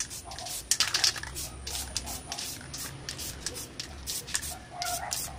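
Aerosol spray-paint can hissing in a series of short bursts, about one every half second, as a third coat of black paint goes onto a motorcycle fairing panel.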